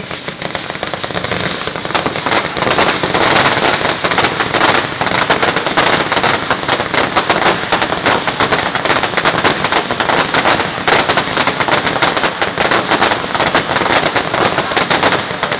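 Fireworks crackling: a dense, unbroken rattle of many rapid small bangs that sets in suddenly.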